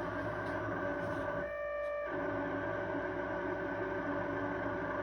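Malfunctioning refrigerator giving a steady screeching drone of several held tones over a low hum. About a second and a half in, the hum cuts out for about half a second while a few higher tones sound alone, then the drone resumes.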